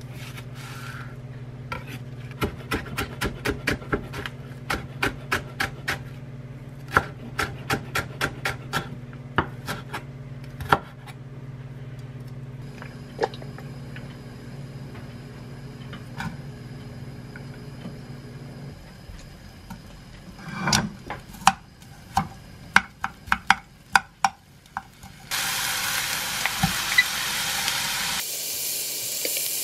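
A chef's knife chopping a green onion on a wooden cutting board, in a run of quick, even strokes. Near the end, chopped green onion and garlic sizzle in hot oil in a frying pan with a steady hiss.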